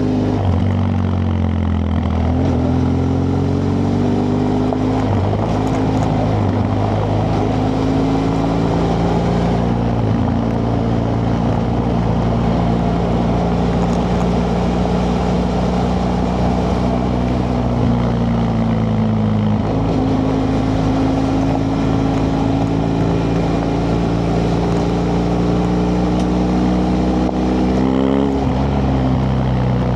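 BMW F 800 GS parallel-twin engine running through its original exhaust under way, loud and continuous. Its note dips and climbs again just after the start, sags and recovers about two-thirds through, and rises then falls quickly near the end.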